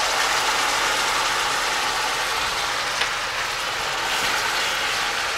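Onions, garlic and freshly added vinegar sizzling steadily in a hot frying pan, with a single light click about three seconds in.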